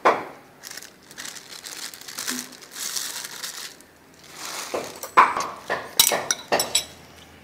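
Crinkling and rustling for the first few seconds, then a metal spoon and chopsticks clinking and scraping against a ceramic bowl as noodles in curry are mixed, with several sharp clinks near the end.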